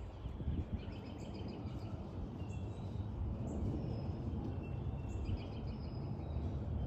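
Steady low rumble of a Boeing 787-8 Dreamliner's GEnx jet engines passing overhead on approach, with small birds chirping again and again over it.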